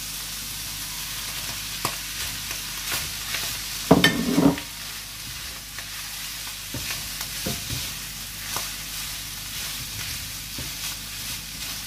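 Chicken and vegetables frying in a hot frying pan and being stirred with a spatula: steady sizzling with scattered scrapes and taps of the spatula on the pan, and a louder clatter about four seconds in.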